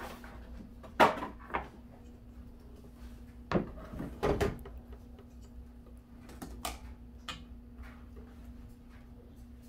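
A stainless steel mixing bowl and a plastic tub knocked and set down on a table: a handful of sharp clunks over the first five seconds. Then lighter clicks from a wire whisk stirring in the metal bowl.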